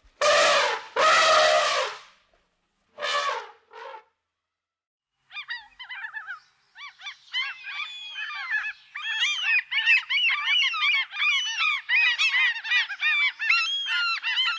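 Three loud drawn-out animal calls, two long and one shorter, then after a brief silence a dense chorus of many short honking calls overlapping one another, as from a flock of birds.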